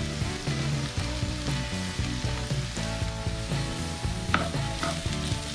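Diced potato and sweet potato sizzling as they fry in oil in a skillet, stirred with a wooden spatula, with two sharp knocks of the spatula a little after four seconds in.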